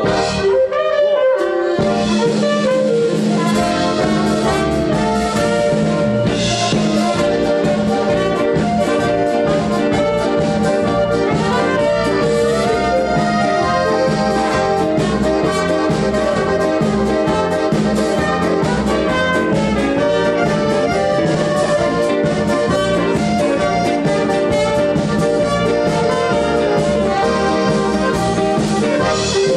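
Live band music: a trumpet carries the melody over two piano accordions and keyboards, with a steady beat. The bass and drums come in fully a couple of seconds in.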